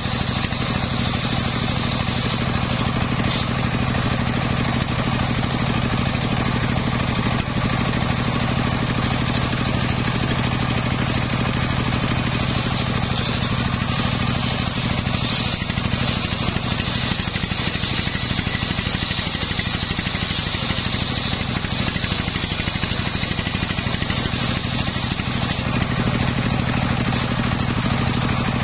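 Large engine-driven circular saw ripping a long waru (sea hibiscus) timber lengthwise: a steady engine drone under the high whine of the blade cutting. The cutting whine drops back near the end.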